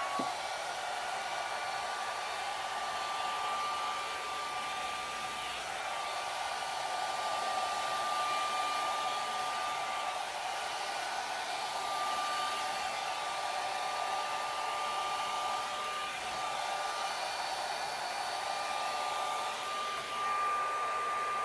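Hot-air blow dryer brush running steadily: a constant rush of air with a high motor whine that wavers slightly now and then, as it dries wet hair.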